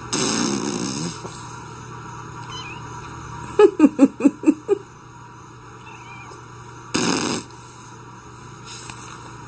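Tabby kitten hissing, in a burst of about a second at the start and a short one near the end. In the middle comes a quick run of about six short pitched sounds, the loudest part.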